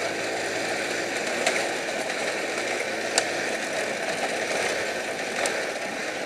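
Honda C90 Cub's small single-cylinder four-stroke engine running steadily while the bike rides over a rough stony track, with rattling and a few sharp knocks from the stones.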